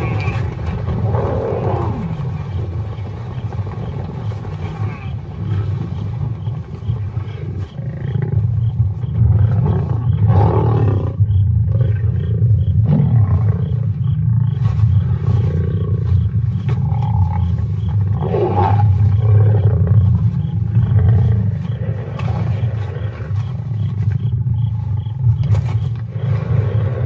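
Lions growling in a continuous deep rumble as they attack a spotted hyena. Higher rising-and-falling cries cut through about a second in, around ten seconds in and around eighteen seconds in.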